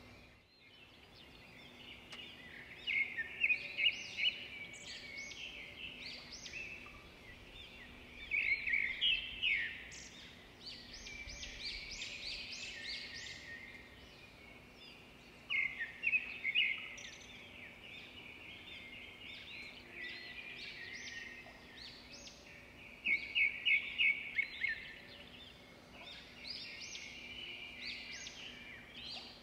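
Birds chirping and singing: a run of short high chirps, with four louder bursts of rapid trilled notes spaced several seconds apart.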